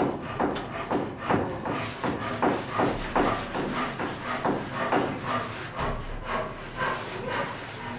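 Hand saw cutting through wood in quick, regular strokes, about two to three a second.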